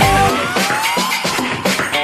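Background music: an electronic track with a steady beat and a rising synth glide that repeats.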